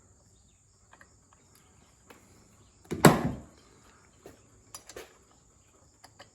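A single loud knock about three seconds in, among scattered light clicks and taps of tools and parts being handled, with crickets chirping steadily behind.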